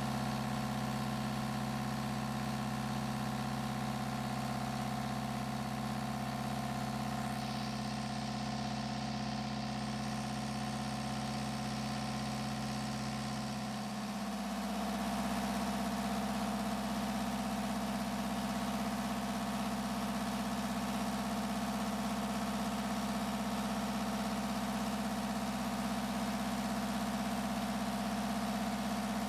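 Kubota V2203 four-cylinder diesel engine idling steadily. The tone shifts about fourteen seconds in, then carries on just as steady.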